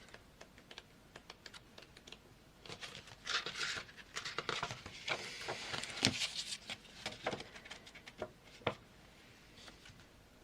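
Paper being handled: sheets of a paper pad rustling as they are leafed through, with scattered light taps and clicks on the work surface. The rustling comes in two spells a few seconds in, and the taps thin out near the end.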